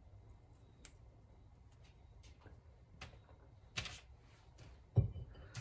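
Faint taps and rustles of fingers placing chopped ham pieces onto a puff pastry tart on parchment paper, with a short rustle near the four-second mark and a dull thump about five seconds in.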